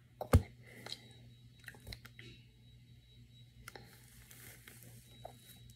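Rustling and crackling of a doll's long synthetic hair handled right against the microphone, with one sharp knock about a third of a second in and scattered small clicks after it.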